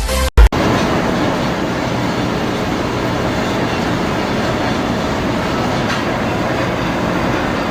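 A short, loud thump about half a second in, then a machine tool running steadily with an even, rough noise.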